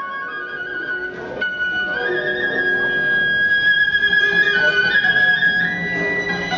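Live traditional Vietnamese water-puppet theatre music: a high melody of long held notes stepping up and down, over lower accompanying notes.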